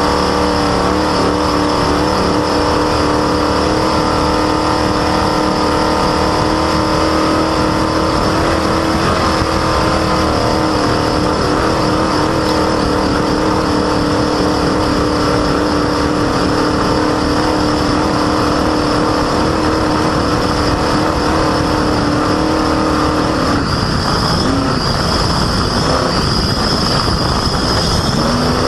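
Off-road race vehicle driven hard over rough ground, recorded from its front bumper: the engine holds a steady note under heavy wind and terrain noise, with the squeal of a loud, squeaky belt. About 24 seconds in the steady note breaks off and the engine speed changes, with a higher whine and a short rising rev near the end.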